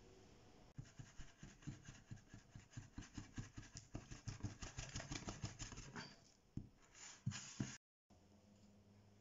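A hand beating soft, wet focaccia dough in a glass bowl: quick rhythmic strokes, about five a second, slowing to a few separate strokes near the end. The dough is being beaten to build up its gluten network.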